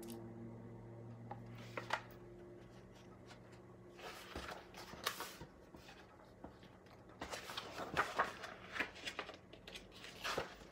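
Faint rustling and soft taps of paper as the pages of a large hardcover picture book are handled and turned, in two spells of short rustles, about four seconds in and again from about seven seconds in.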